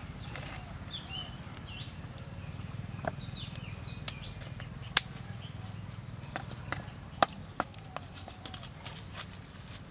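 A small wood fire crackling with scattered sharp pops, the loudest about halfway through and again a couple of seconds later. A bird gives short falling chirps in the first half, over a steady low background rumble.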